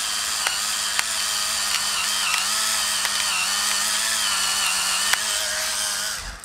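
Battery-powered motor of a ONECAM Gravity electric pepper grinder running steadily, grinding black peppercorns on the fine setting, with a few sharp clicks. It cuts off near the end as the grinder is tipped upright, which stops its gravity switch.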